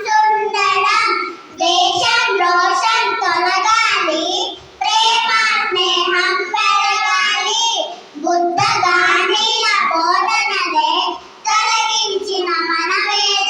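A child singing a song in a high voice, in phrases of about three seconds with short breaks between lines.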